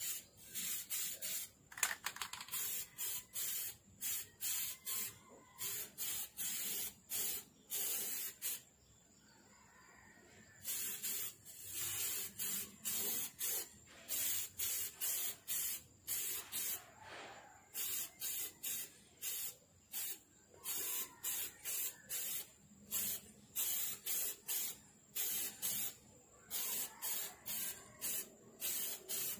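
Aerosol spray-paint can hissing in short, rapid bursts, about two a second, as thin coats are laid on. There is a pause of about two seconds partway through, and one sharp click about two seconds in.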